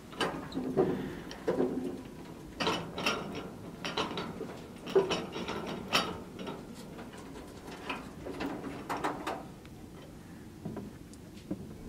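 Library mobile compact shelving being cranked by its three-spoke hand wheel: the geared carriage rattles and clicks in a series of uneven bursts as the shelving rolls to open an aisle, settling to a few light clicks near the end.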